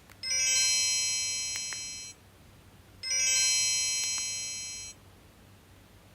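A mini flip phone's small speaker playing an electronic chime: a bright chord of several ringing tones sounds twice, each about two seconds long and fading out, with a gap of about a second between them.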